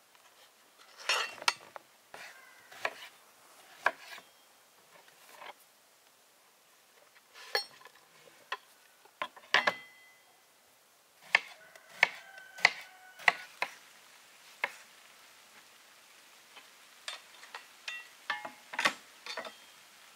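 Kitchenware being handled: irregular clinks and knocks of dishes, pots and metal utensils, some ringing briefly, busiest around the middle and again near the end.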